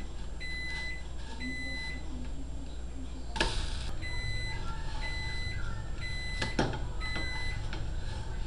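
Electronic kitchen timer beeping, a high beep about every second. About three and a half seconds in, a plastic spatula flips the pancake in the ceramic non-stick frying pan with a sharp knock, and a couple of light spatula clicks on the pan follow later.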